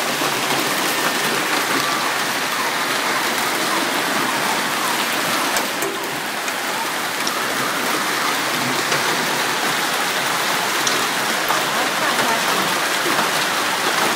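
Hailstorm: hail and heavy rain pelting the street and surrounding surfaces, a dense, steady hiss with scattered sharp ticks.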